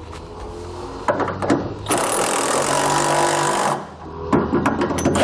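Cordless electric ratchet spinning bolts snug on a truck frame bracket. It runs in short spells, the longest and loudest for nearly two seconds near the middle, with clicks of the tool and socket on the bolt between spells.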